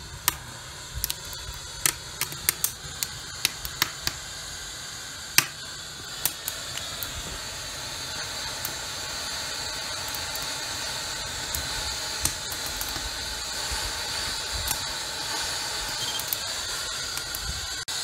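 Wood fire in the rocket stove's firebox crackling, with sharp pops over the first several seconds. Then a steady hiss of steam escaping from the wood-fired boiler builds and holds.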